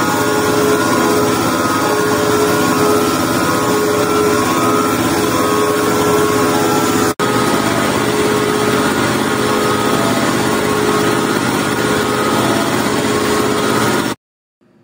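Haas VM2 CNC mill cutting titanium under flood coolant: a loud, steady machining sound with several held tones over the hiss of coolant spray. It breaks for an instant about halfway through and cuts off suddenly near the end.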